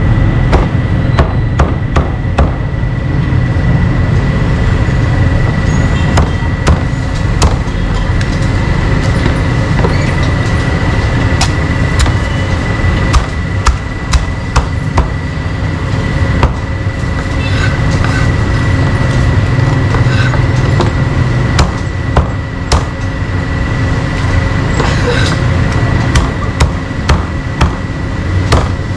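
Cleaver chopping meat on a chopping block: sharp, irregular knocks, sometimes in quick clusters, over a steady low rumble.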